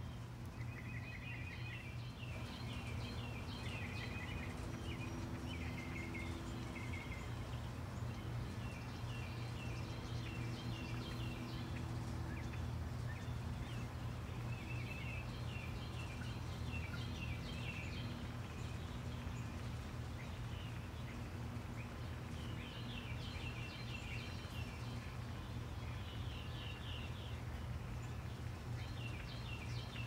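Songbirds chirping in short, rapid trilled phrases, again and again, over a steady low background rumble.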